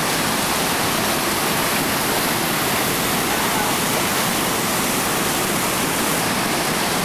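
Whitewater rapids rushing over boulders: a loud, steady churning roar of fast water.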